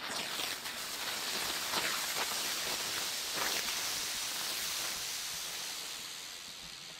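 Xplode "Wespennest" firework going off: several effects shoot up on trails from the ground and burst into silver glitter, making a continuous dense hissing crackle that eases slightly toward the end.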